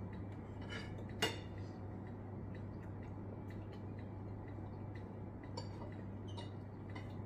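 Cutlery clinking against a bowl of meatball soup during eating, in a few scattered clinks; the sharpest comes about a second in. A steady low hum runs underneath.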